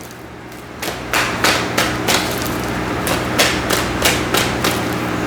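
A steady run of sharp knocks, about three a second, starting about a second in, over a faint steady hum.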